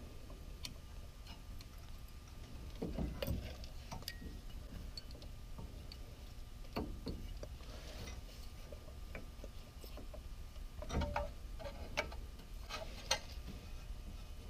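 Light, irregular metallic clicks and clinks of brake pads being settled into the caliper bracket's anti-rattle clips, with a few louder knocks about three seconds in and again near the end.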